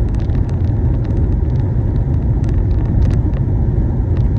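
Steady low rumble of road and engine noise from a car cruising on a highway, heard from inside the cabin, with faint scattered ticks.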